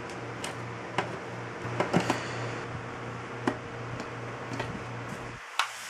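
Tin snips biting into the thin steel of a sealed surplus ammunition tin: a string of short, sharp metallic snips, loudest in a quick cluster about two seconds in, over a steady low hum that stops abruptly near the end.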